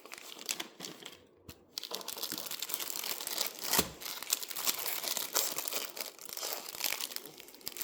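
Plastic packaging bags of kit parts crinkling as they are handled. A few light taps come first, then steady crinkling from about two seconds in, with one sharper crackle near the middle.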